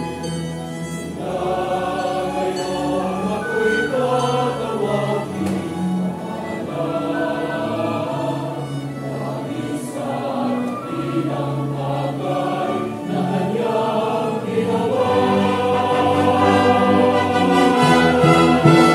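Church choir singing a Mass setting, accompanied by brass ensemble, string quartet and organ; the music builds louder near the end.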